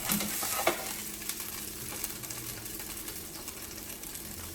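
Chicken breasts sizzling in a frying pan, a steady hiss, with a couple of light clicks in the first second.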